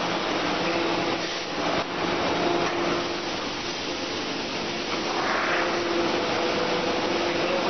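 Steady machine noise of a cookware production line with hydraulic presses: an even rushing hiss with a faint low hum underneath.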